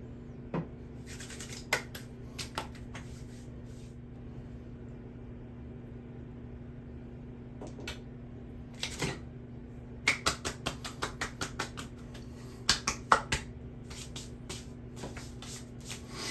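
Scattered light clicks and short scrapes of small hard objects being handled, with a quick run of about a dozen clicks about ten seconds in, over a steady low hum.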